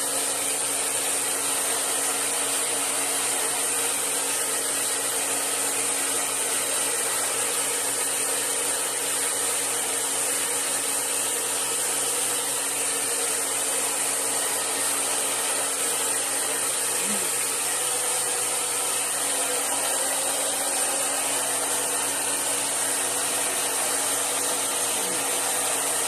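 Handheld hair dryer blowing steadily: an even rush of air over a constant motor hum, with no change in speed or setting.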